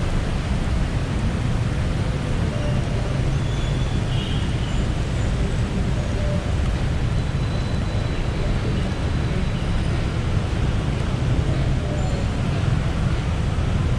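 Steady city traffic on a busy road: a continuous low rumble of passing cars and buses with no single vehicle standing out.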